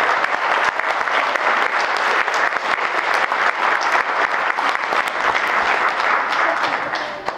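Audience applauding in a lecture hall: many hands clapping steadily, tailing off near the end.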